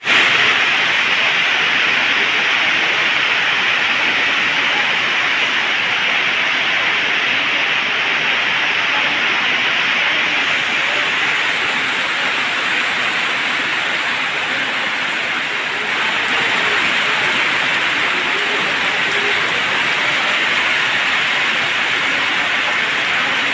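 A rain downpour falling on wet ground and puddles: a steady, even hiss with no let-up.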